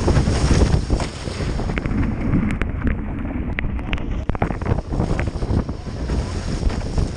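Heavy wind buffeting on a boat-mounted action camera's microphone, over water rushing and splashing past the hulls of a Nacra F16 catamaran sailing at speed. About two seconds in the sound goes dull for a couple of seconds, with a few sharp ticks.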